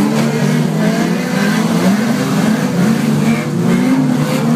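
Several banger-racing cars' engines revving together in a destruction derby, their overlapping pitches rising and falling continuously.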